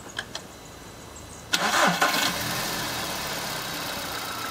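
Two light clicks, then about a second and a half in a Volkswagen 1.6 BLF four-cylinder 16-valve FSI petrol engine starts. It flares briefly on catching, then settles into a steady idle.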